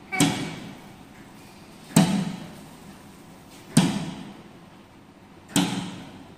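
Four sharp clunks about 1.8 seconds apart, each with a short ringing tail: the combo vending machine's electronic locker locks releasing one after another.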